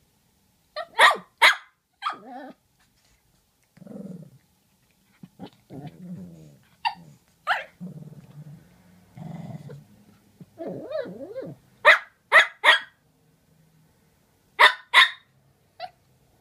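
Two Shih Tzus trading sharp barks in short runs of two or three, with low growling and whiny grumbles between the runs.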